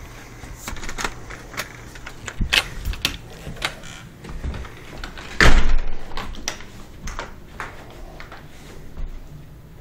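A door being opened and shut, with a run of clicks and knocks and one loud bang about five and a half seconds in.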